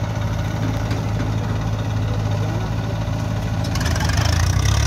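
Diesel engines of an Eicher tractor and a JCB backhoe loader idling with a steady low drone. About four seconds in the sound grows louder and coarser, with a deeper engine note.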